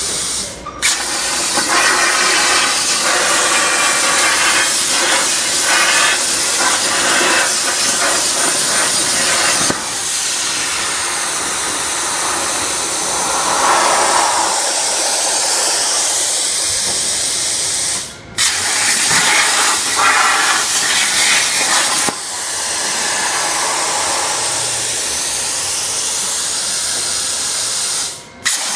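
CNC plasma cutter torch hissing steadily as it cuts 1.5 mm stainless steel sheet. The hiss cuts out briefly three times, about a second in, about two-thirds of the way through and near the end, and starts again at once each time.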